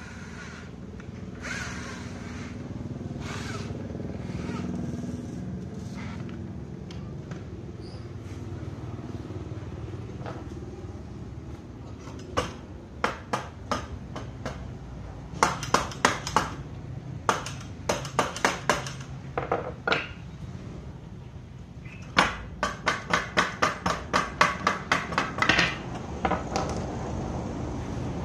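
Hammer tapping on a wooden window frame, starting about halfway through, in runs of quick sharp strikes that reach about three or four a second near the end. A steady low rumble lies underneath.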